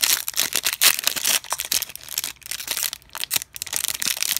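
Foil wrapper of a 2019 Panini Phoenix football card pack being torn open and crinkled by hand: a dense run of sharp crackles and rips.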